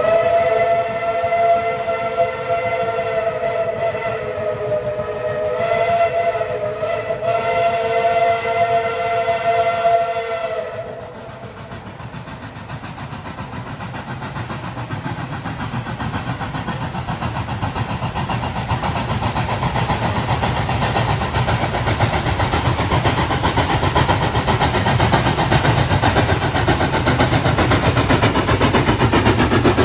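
Steam locomotive's multi-tone chime whistle sounding one long blast of about eleven seconds, then cutting off. After it the locomotive approaches, its exhaust chuffing and wheels rumbling louder as it draws near.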